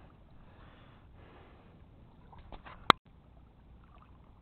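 A quiet outdoor background with faint rustling. About three seconds in comes one sharp, loud click, and the sound drops out for a moment straight after it.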